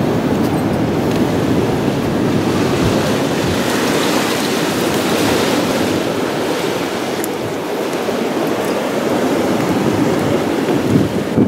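Steady wind rushing over the microphone, mixed with the wash of ocean surf.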